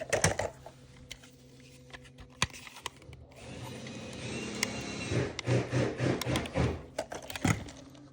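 Small electric motor of a toy remote-control car whirring steadily for a few seconds, after a few sharp plastic clicks.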